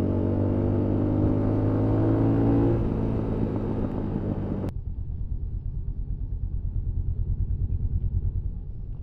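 Honda XR125L's single-cylinder four-stroke engine running at a steady cruise, with road and wind noise. Partway through the sound abruptly turns muffled, leaving only a low, pulsing rumble.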